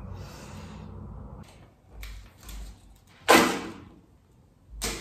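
Foil face-mask sachet being handled and torn at, with a loud short rasp about two-thirds of the way in and another just before the end; the sachet does not tear open.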